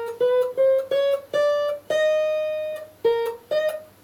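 Fender steel guitar played with a steel bar: a major scale in two-note harmony, the pairs plucked one after another and stepping upward in pitch. After a pause as the last pair rings out, two more pairs are plucked near the end, the bar sliding them up into pitch.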